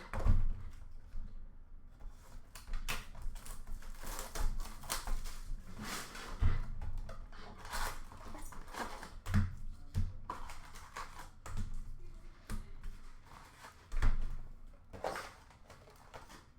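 Upper Deck hockey card packs and cards being handled: irregular rustling, crinkling and clicking as wrappers are torn open and cards are slid and flipped, with occasional soft thumps as they are set down.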